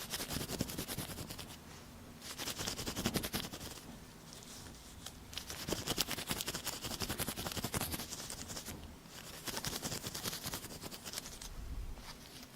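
ASMR ear cleaning on a microphone: close, crackly scratching and rubbing sounds in bursts of a second or two, with short pauses between them.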